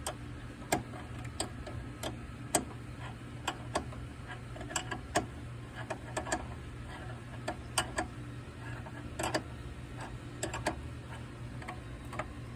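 Irregular metallic clicks and taps of a wrench on the brake line fittings of a master cylinder as they are undone, over a steady low hum.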